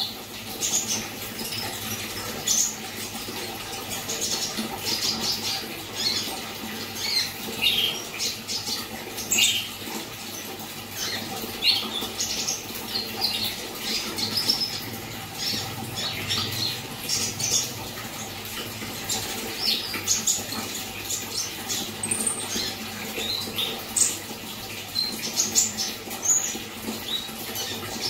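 Konin songbird singing persistently in full voice: a long run of quick, varied chirps and short whistled notes with few pauses, the kind of 'gacor' song played to get young konin birds singing.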